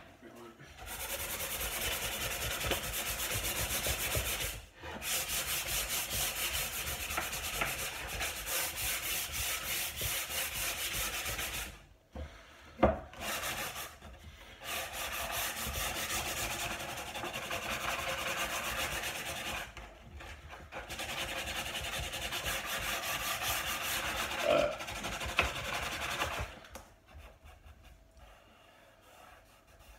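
Hand sanding of a wooden table top with sandpaper, rubbed back and forth in rapid even strokes. It comes in long runs with short pauses and stops near the end.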